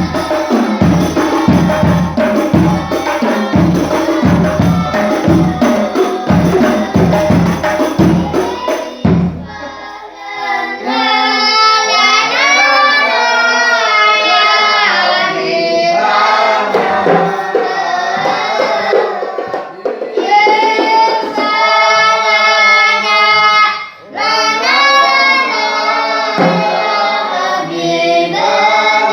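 Hadroh ensemble: rebana frame drums beating a steady rhythm, then after about nine seconds the drums drop back and a group of voices sings a devotional song, with short breaks between phrases.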